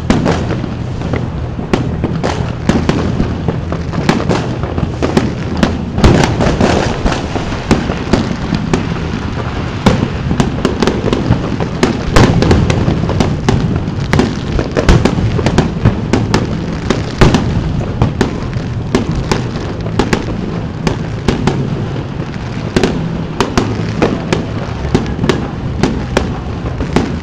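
Aerial fireworks display: a continuous barrage of bangs and crackling from bursting shells, with many sharp reports.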